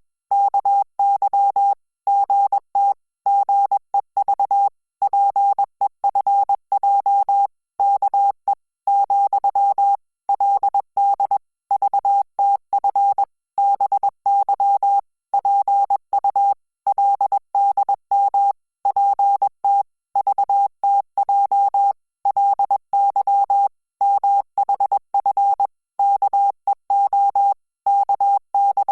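Korean (Hangul) Morse code sent as a single steady beep keyed on and off at 20 words per minute: short dots and longer dashes, with brief gaps between characters and longer ones between words.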